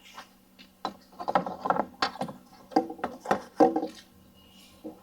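Hard plastic air filter box parts knocking, rubbing and clicking against each other as the cover is fitted into place, with a cluster of handling noises in the middle and quieter stretches at either end.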